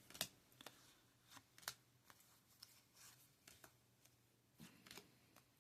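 Faint, scattered clicks and flicks of Yu-Gi-Oh trading cards being handled and flipped through, about eight soft ticks spread over a few seconds.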